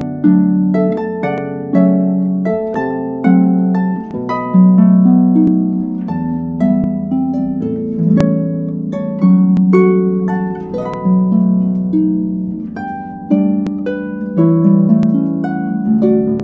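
Background music of gently plucked, harp-like notes, with a louder chord about every second and each note fading away.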